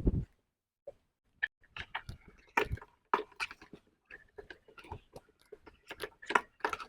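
Irregular clicks, knocks and rustling of parts being handled, fairly closely spaced throughout.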